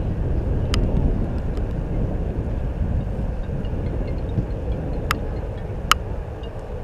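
Steady low rumble of wind on the microphone at a soccer field, with three sharp knocks of a ball being kicked, the loudest about six seconds in.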